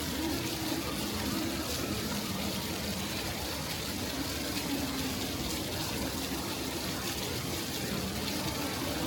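Steady rush of running, splashing water, with a faint murmur of voices under it.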